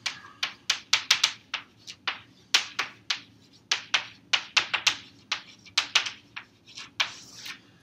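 Chalk writing on a blackboard: a quick, irregular run of sharp taps and short scratches, about four a second, with a longer scrape near the end.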